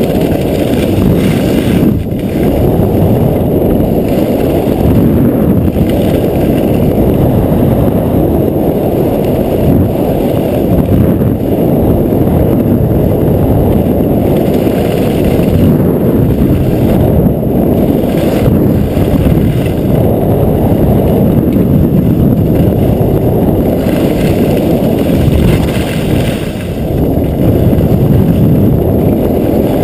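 Loud, steady rush of wind buffeting an action camera's microphone on a fast downhill run over packed snow, with the hiss of the ride across the snow beneath it. It eases briefly about two seconds in and again near the end.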